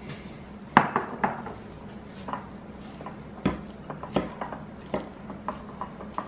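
Metal fork clinking and scraping against a ceramic bowl while chopped callaloo stuffing is stirred. The knocks come irregularly, the loudest about a second in.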